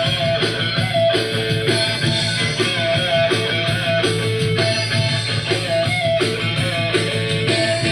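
Live rock band playing amplified, with electric guitar over bass and a drum kit; short notes repeat about once a second in a riff.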